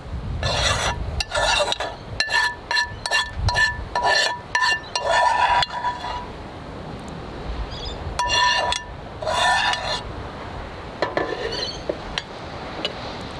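A spatula scraping sauce out of a frying pan into bowls: a quick run of short strokes with the pan ringing at each one, then two longer scrapes and a few faint clinks.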